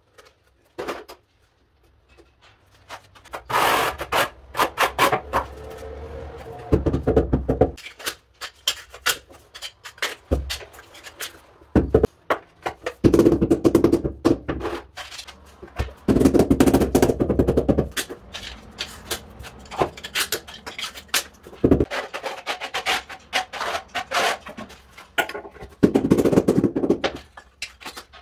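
Rubber mallet tapping a porcelain floor tile to bed it into the adhesive, in several runs of quick taps a second or two long, between lighter clicks and knocks of tiles, leveling clips and tools.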